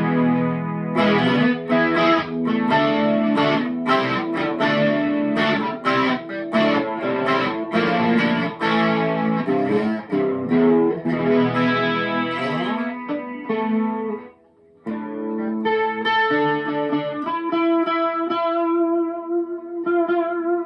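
Electric guitar on the bridge pickup, volume and tone full up, played through a TC Electronic 3rd Dimension chorus pedal on button 4, its most chorused setting: chords strummed and notes picked, a brief break about two-thirds of the way through, then a chord left ringing out near the end.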